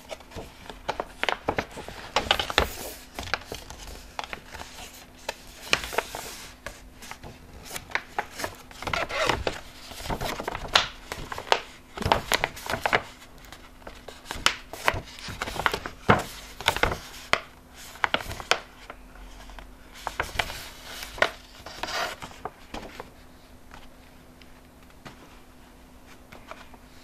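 Glossy laminated plastic flat-bottom pouch crinkling and crackling as it is squeezed, folded and turned in the hands, in irregular sharp crackles that die down over the last few seconds.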